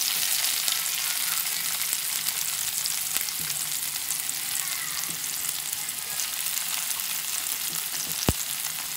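Chopped onion sizzling in hot oil in a nonstick pan. The hiss comes in suddenly as the onion hits the oil, then runs on steadily. A single sharp click sounds near the end.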